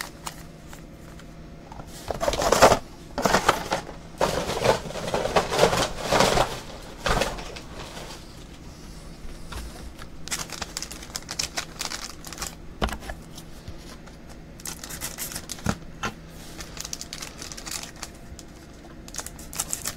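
Foil-wrapped trading card packs and their cardboard box being opened by hand: wrappers crinkling and tearing in irregular bursts, with a few sharp clicks and taps.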